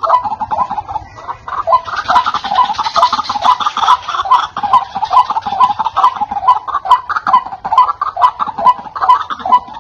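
White-breasted waterhen (ruak-ruak) calling: a loud, clear, rhythmic series of repeated croaking notes, about three a second, with a harsher, higher layer joining for a couple of seconds about two seconds in. This is the call used as a lure to draw in wild waterhens.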